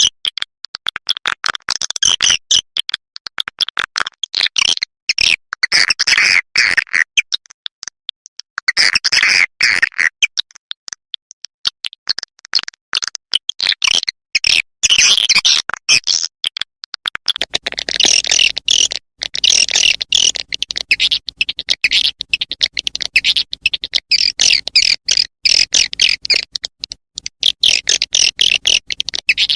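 Swiftlet call-lure recording: rapid, high-pitched chirping and clicking twitters, coming in bursts with short gaps, then running on without a break from a little past halfway, with a faint low hum underneath. It is the kind of call played to draw swiftlets into a nesting house.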